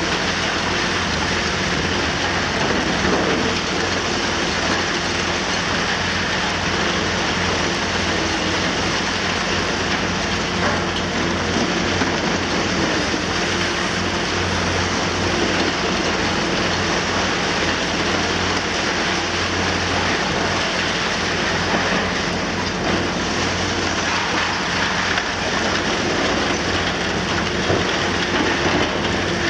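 Liebherr R960 high-reach demolition excavator's diesel engine running steadily under load while its long front breaks into a concrete building, with a continuous crackle and clatter of falling concrete and debris.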